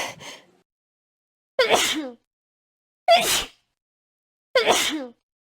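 Four sneezes in a row, spaced about a second and a half apart with dead silence between them. Each is short, a voice sliding down in pitch inside a sharp, hissy burst.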